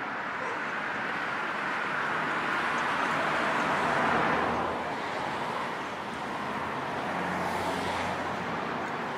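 Steady road traffic noise. It swells as a vehicle passes, loudest about four seconds in, and swells again with a low hum near the end as another goes by.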